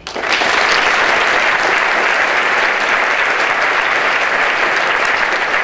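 Audience applauding a guest's introduction, setting in sharply at the start and holding steady and loud.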